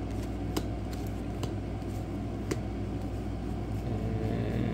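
Steady low background hum with three or four faint light clicks spread through, as trading cards are flipped and handled.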